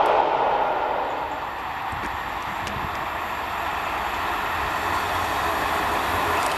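Noise of a passing train dies away over the first second or so. Then a main-line steam locomotive hauling an excursion train approaches, a steady rumble slowly growing louder.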